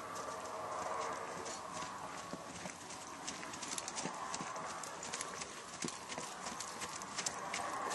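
Hoofbeats of a ridden Quarter Horse gelding on packed snow and frozen ground, a quick run of sharp strikes that grows denser about three seconds in.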